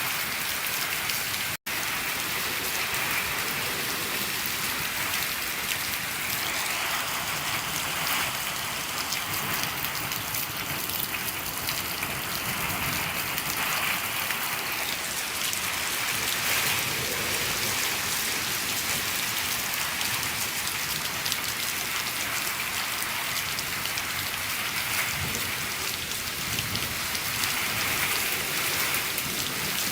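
Steady rain falling on a shed roof, a dense even patter, with a momentary break in the sound about a second and a half in.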